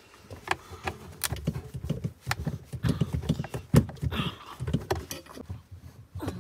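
Irregular clicks, knocks and thuds of a Wagner Control Pro paint sprayer being handled and laid on its side while the bolts on its underside are unscrewed, with one sharper knock about the middle.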